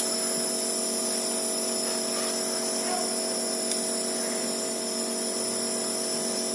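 Nebulizer's electric compressor running with a steady hum, delivering inhaled medicine for a child's cough.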